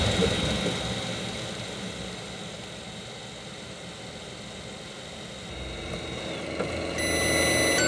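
A 3D printer printing, its fans and motors making a steady mechanical hum with a thin high whine that fades and slides down in pitch a little past six seconds in. Near the end a run of electronic beeping tones begins.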